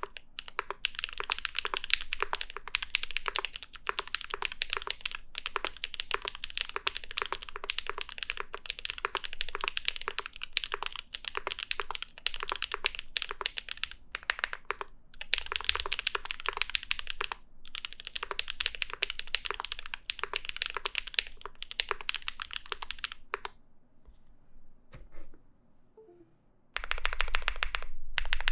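Typing on a mechanical keyboard fitted with Zaku long-pole linear switches: a fast, continuous run of key clacks with short pauses, stopping about 23 seconds in. The switches have a loud bottoming-out sound.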